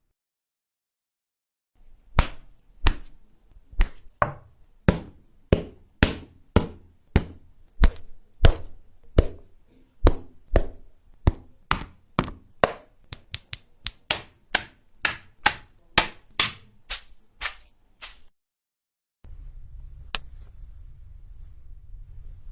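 A series of about thirty sharp body-hit impacts, punches landing on a body, quickening as they go and then stopping. Near the end a steady low rumble sets in, with one click.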